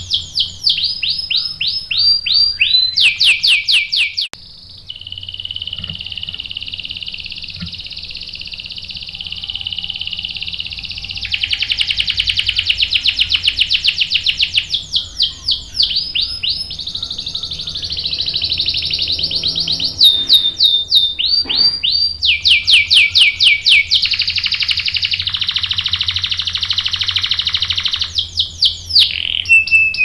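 Canary singing hard: long, unbroken rolling trills alternate with runs of rapid, steeply falling repeated notes, in several phrases one after another.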